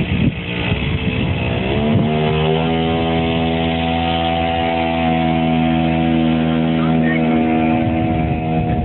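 Small engine of a homemade motorized wheelbarrow scooter running unevenly at low revs, then revving up about two seconds in and holding a steady high-pitched drone as the scooter pulls away.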